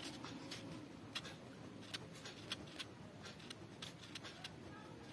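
Ballpoint pen writing on paper: faint, irregular scratches and ticks as letters and symbols are written.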